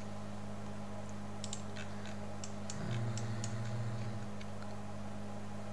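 Computer mouse clicking, a run of light irregular clicks between about one and four seconds in, over a steady low hum.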